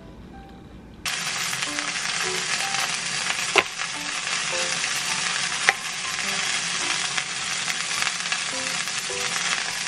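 Food sizzling in a hot frying pan: a steady hiss that starts suddenly about a second in, with two sharp clicks partway through.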